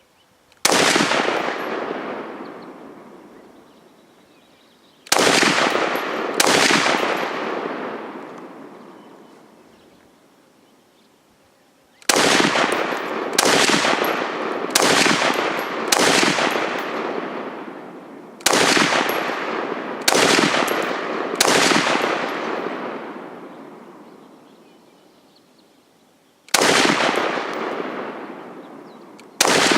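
IMI Tavor bullpup rifle fired in single aimed shots, about fourteen in all: a few spaced shots, then a quick string of five, then four more, then two near the end. Each shot trails off in a long echo.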